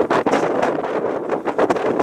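Wind buffeting an outdoor microphone: a steady, rumbling rush broken by irregular crackles.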